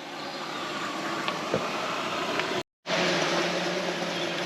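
Gas camp stove burner hissing steadily while heating water for ramen. The sound cuts out completely for a moment about two-thirds of the way through, then resumes with a faint low hum under the hiss.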